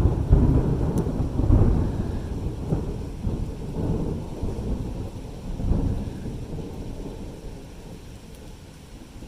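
Rolling thunder: a long, low rumble that is loudest at the start, swells a few times and slowly fades away, over rain.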